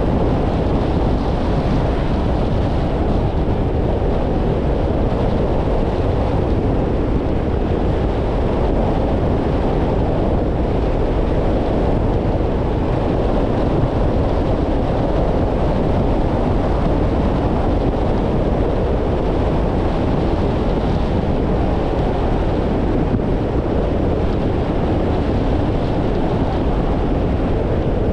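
Steady road noise of a car driving: tyres on wet asphalt, engine and wind noise rolling together at an even level, with no distinct events.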